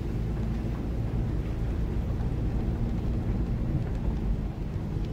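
Toyota Tacoma pickup running steadily on a dirt and gravel track: a low engine and tyre rumble, heard from inside the cab.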